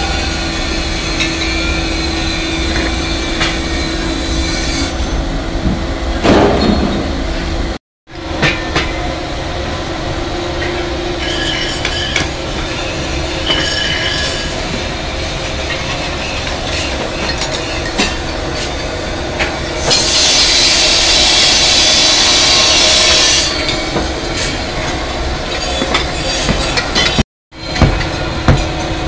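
Steady rumbling noise in a sand-casting foundry, with a louder hiss lasting about three seconds past the middle. Near the end come sharp knocks as moulding sand is rammed by hand into a mould around a pressure-cooker pattern.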